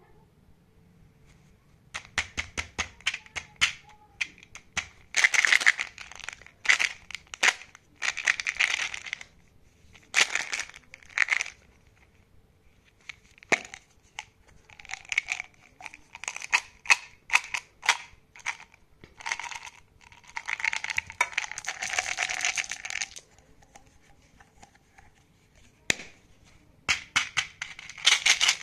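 Hands handling a plastic Mentos gum jar: clicks and taps of its flip-top lid, and repeated bursts of hard gum pellets rattling inside the jar and spilling out, with short pauses between.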